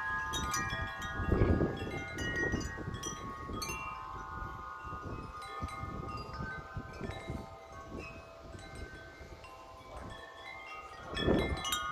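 Wind chimes clanging in strong wind, struck over and over so that several notes ring on together. Gusts buffet the microphone about a second in and again near the end.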